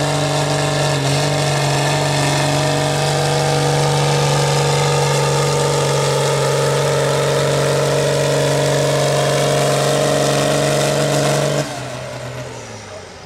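Case IH MX150 tractor's diesel engine held at full throttle under heavy load, pulling a weight-transfer sled with a steady, even note. Near the end the throttle is cut abruptly and the engine winds down in pitch as the pull stops short of a full pull.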